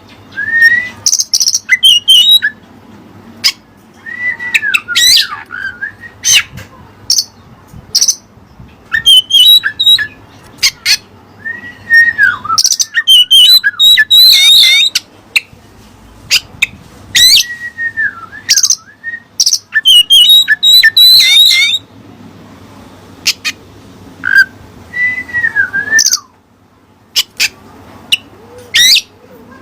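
Oriental magpie-robin (kacer) singing loud, varied phrases in quick succession, with short pauses between them: down-slurred whistles alternate with rapid high trills and chips. The song is filled with mimicked cililin phrases.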